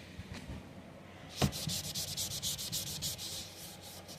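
A single knock, then a quick run of rubbing strokes, someone wiping a spot off a furniture surface.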